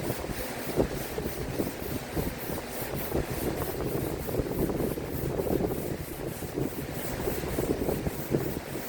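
Wood being sanded: a steady, uneven rubbing and scraping.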